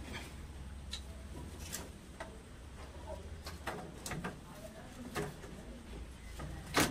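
Scattered clicks and knocks of CPVC pipe and fittings being handled and pushed together, with the loudest knock near the end, over a steady low hum.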